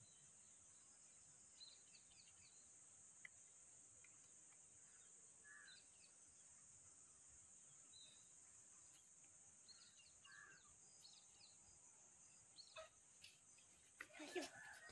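Near silence: faint outdoor ambience with a steady high-pitched hiss or drone, scattered faint small-bird chirps, and a few soft clicks near the end.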